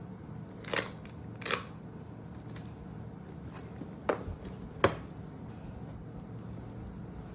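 Smartphone box being opened by hand: two short scraping strokes of packaging about a second in, then two sharp clicks about four and five seconds in.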